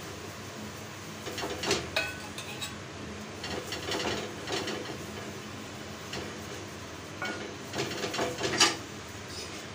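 Steel kitchen utensils clinking and scraping against a small steel bowl over the griddle, in scattered clusters, with the sharpest clink near the end.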